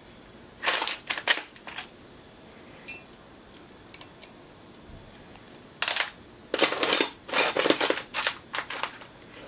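Metal tools and small steel parts clinking and clattering while a diesel injection pump is taken apart with a Torx driver. There are a few sharp clicks about a second in, then a longer run of clattering from about six seconds in.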